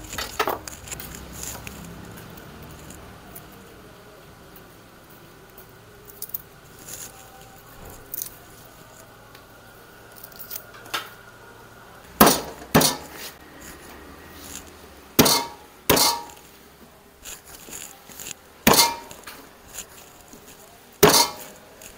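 Sharp knocks of kitchen utensils on a hard surface during food preparation, about six loud ones at irregular intervals starting about halfway through, after a stretch of faint small clicks.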